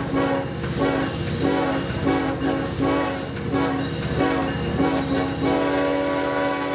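Train horn sounding a run of short, uneven blasts, then one long held blast near the end.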